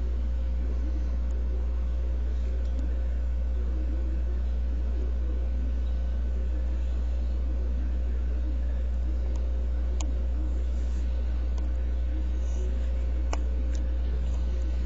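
A steady, unchanging low hum, with two faint clicks about ten and thirteen seconds in.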